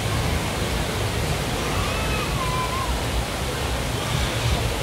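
Steady rush of falling water from a waterfall, an even hiss with a low rumble underneath.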